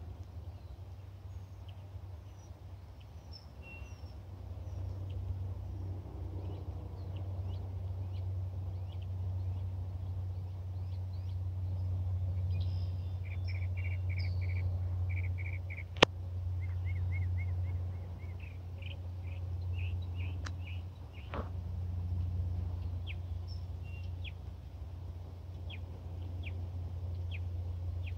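Small birds chirping and calling across a field, scattered short high notes with a couple of fast runs of repeated notes partway through, over a steady low rumble. One sharp click about halfway through.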